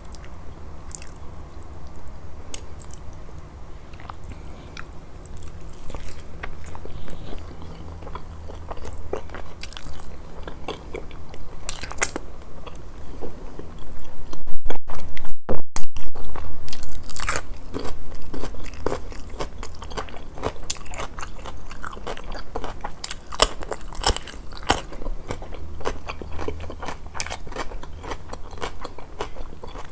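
Close-miked eating: wet chewing and crunchy bites of grilled fish and its side dishes, as many short clicks that come thicker in the second half, with the loudest bites about halfway through.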